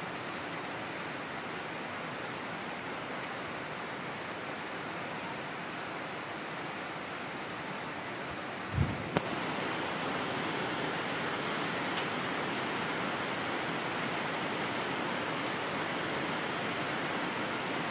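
Steady rushing noise of heavy rain and a flooding river. A brief low thump comes about nine seconds in, after which the noise is slightly louder and brighter.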